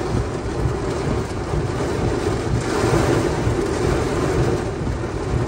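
Heavy rain beating on a car's roof and windshield in strong wind, heard from inside the car as a loud, steady rush.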